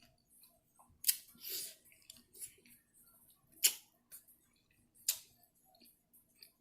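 Eating sounds during a mukbang: a few sharp clicks, three of them standing out, with soft mouth noises between them.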